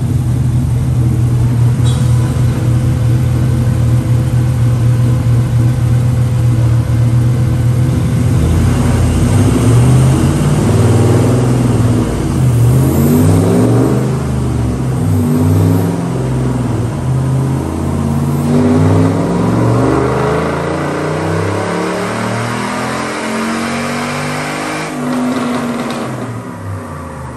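392 HEMI 6.4-litre V8 in a Jeep Wrangler running under load on a chassis dyno. It holds a steady note for several seconds, then the revs climb and drop back several times, and it eases off and winds down near the end.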